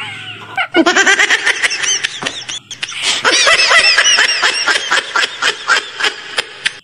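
People laughing in quick, high-pitched peals; the laughter starts about a second in, breaks off briefly midway, then picks up again.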